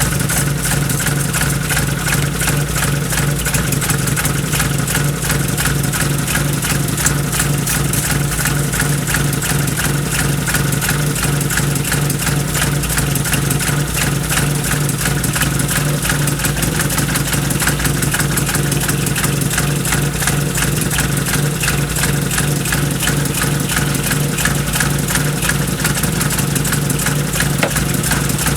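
Volkswagen Golf Mk1 engine idling steadily through a freshly welded exhaust, running so the new joints can be checked for leaks with soapy water.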